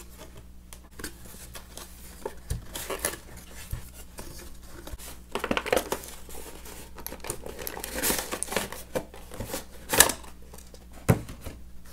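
Toy packaging being opened by hand: crinkling and rustling with scattered clicks and taps, and two sharper knocks near the end.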